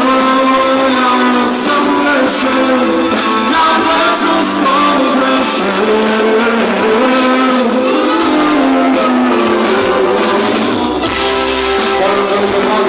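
Live band playing: synthesizer keyboards, electric guitar and drums.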